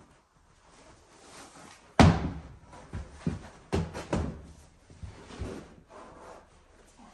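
A loud, sharp knock about two seconds in, followed by a run of lighter knocks and thuds over the next few seconds.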